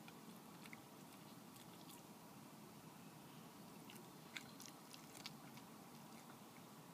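Red fox eating from a bowl close by: faint crunching and clicking chews over a quiet hiss, the sharpest two about four and a half and five seconds in.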